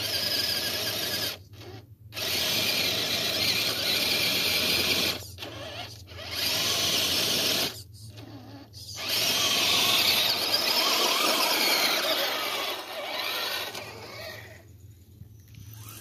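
Axial SCX10 II Deadbolt radio-controlled rock crawler: its electric motor and geared drivetrain whine under throttle in about four bursts of a few seconds each, with short pauses between as the throttle is let off.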